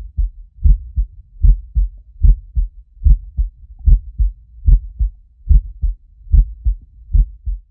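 Heartbeat sound effect: about ten deep double thumps, lub-dub, coming steadily at roughly one beat every 0.8 seconds.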